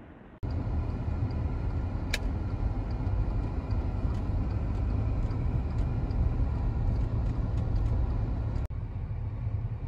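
Outdoor street ambience dominated by a steady low rumble, starting abruptly about half a second in, with one sharp click about two seconds in.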